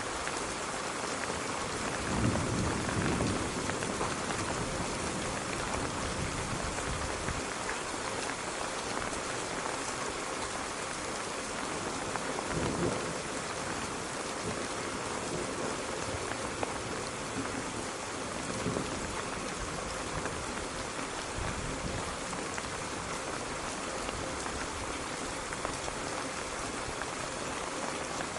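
Steady rain falling and pattering on surfaces, with a few low rumbles of thunder: the loudest about two seconds in, then shorter ones near the middle and about two-thirds through.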